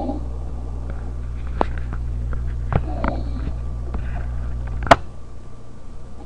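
A man snoring, heard over a video-chat call: one faint snore about three seconds in, over a steady low hum, with a few sharp clicks, the loudest about five seconds in.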